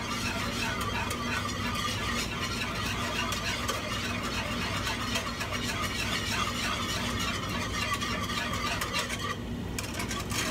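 Whisk beating fast in a saucepan, scraping and rattling against the pan while a milk and gelatin mixture is whisked into caramel until the gelatin dissolves. The whisking stops briefly near the end.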